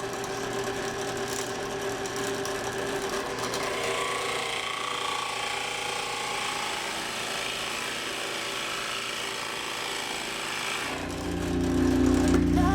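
A power tool running steadily, with a few held tones over a noisy hiss. Music comes in near the end.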